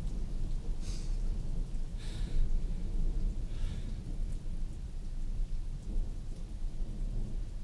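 Thunderstorm: a low, continuous rumble of thunder under rain, with a few short hissing swells about one, two and three and a half seconds in.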